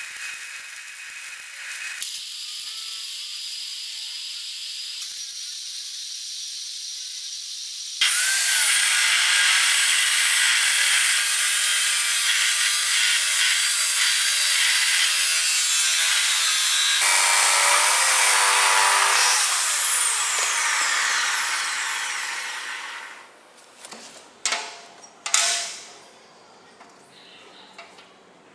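Workshop power tool work in short edited clips: quieter tool noise at first, then a loud power tool running from about a third of the way in, spinning up at the start and winding down later, followed by a few sharp knocks near the end.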